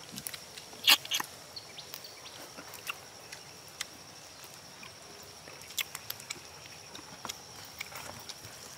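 A cooked crab claw being eaten by hand: scattered sharp clicks and cracks of shell and chewing, the loudest about a second in.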